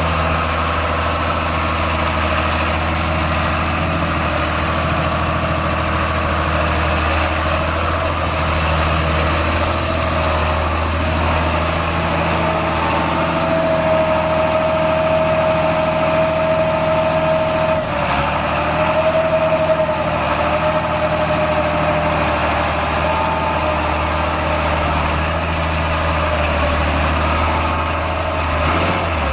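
Diesel engine of a John Deere rubber-tracked tractor running steadily, with a high whine over it for several seconds in the middle.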